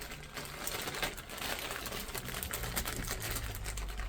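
Rapid crinkling and clicking as packets of new brake caliper seals are handled, a dense irregular crackle throughout.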